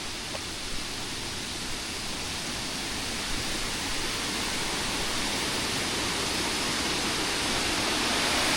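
Waterfall's rushing water, a steady dense hiss that grows gradually louder.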